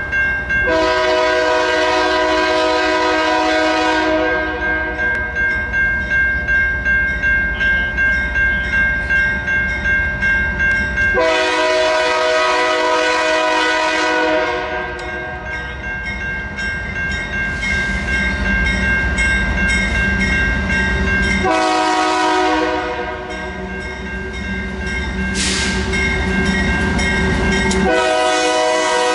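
Diesel freight locomotive's air horn sounding four long chord blasts for a grade crossing as the train approaches, each a few seconds long and several seconds apart, the last starting near the end. Under it are the low rumble of the locomotive's diesel engines and the steady ringing of the crossing-signal bell.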